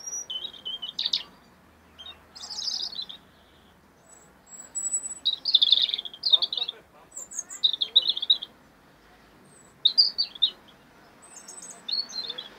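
European robin singing: a series of short, high, warbling and trilling phrases, about six of them, separated by brief pauses.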